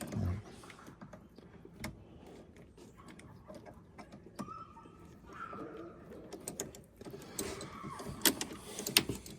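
Scattered light clicks and clinks of hand work on the shifter linkage parts, with a few sharper knocks near the end.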